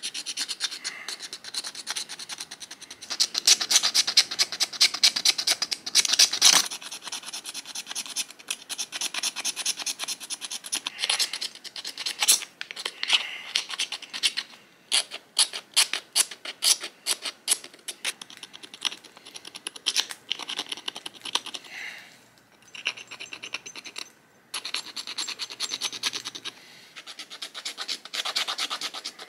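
Stone burin scraping and cutting a groove along a deer leg bone in quick, repeated one-way strokes, several a second, in runs broken by a few short pauses. The strokes are cutting through the bone to free a needle blank.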